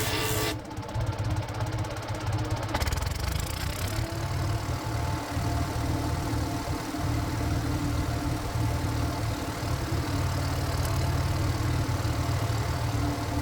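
Power tiller's single-cylinder diesel engine running steadily with a low, even chug. A steady higher whine joins in about four seconds in.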